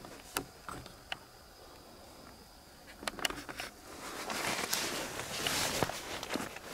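Rustling and crackling: a few sharp ticks at first, then a denser run of cracks and rustling from about three seconds in. A faint steady high whine runs through the first half.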